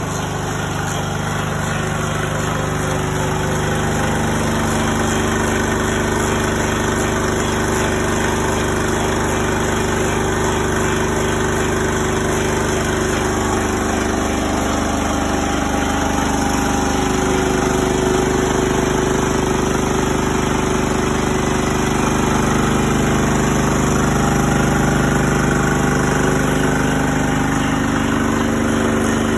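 Engine running steadily, driving a Defiance automatic copying lathe through a flat belt while the lathe cuts a white ash blank into a throwing-axe handle.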